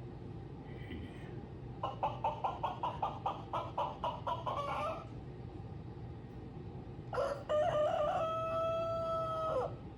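Rooster clucking in a quick run of about four clucks a second, then crowing one long, steady cock-a-doodle-doo near the end.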